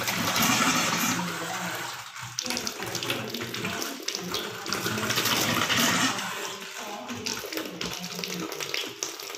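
Tap water running into a stainless steel sink and splashing over a heap of live mud crabs. The flow is loudest in the first second or so and again from about three to six seconds in, softer in between and near the end.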